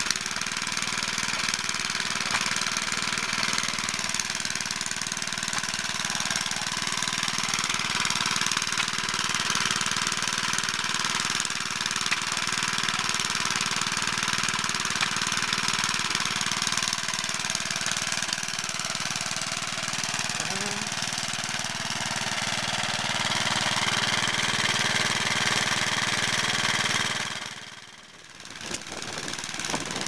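Small vintage stationary engines running steadily. The sound drops out briefly near the end, then picks up again.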